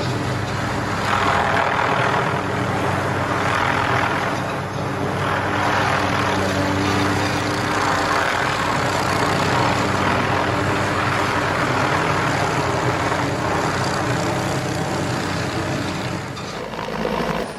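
A large engine running steadily with a low hum, its noise swelling and easing every couple of seconds; the sound changes abruptly just before the end.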